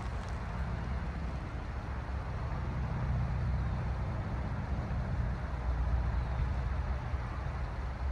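Diesel locomotives of a Norfolk Southern freight train, a steady low rumble that slowly grows louder as the train approaches.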